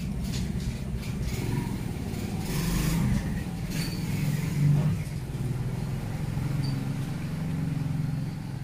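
A motor vehicle engine running steadily with a low hum, swelling briefly around the middle.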